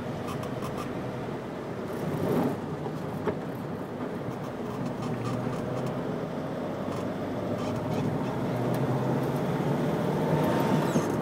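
Car engine and road noise heard from inside the cabin while driving in city traffic, growing louder through the second half as the car gets moving.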